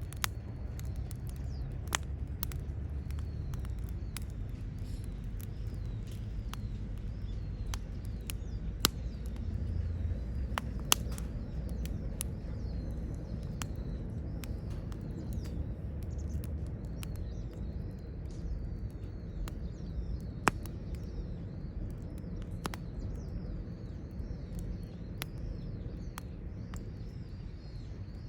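Wood campfire crackling, with scattered sharp pops over a low steady rumble. Birds chirp continuously in the background.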